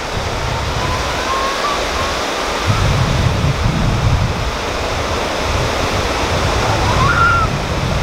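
Small waves washing steadily onto a sandy, rocky shore, with uneven low gusts of wind buffeting the microphone. A faint thin whistle glides up twice, about a second and a half in and near the end.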